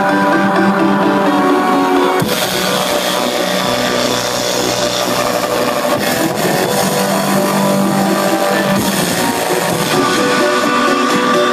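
Electronic dance music from a live DJ set, played loud over a club sound system and heard from the crowd. It has held synth chords, a noisier hissing wash that comes in about two seconds in, and the held chords returning strongly near the end.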